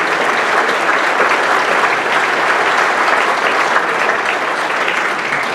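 A roomful of people applauding steadily, dense clapping that begins to fade right at the end.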